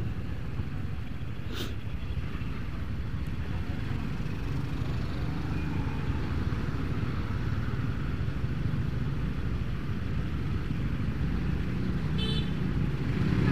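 Motorcycle engines idling in stopped traffic at a red light: a steady low rumble, with a click about two seconds in and a brief high-pitched tone near the end.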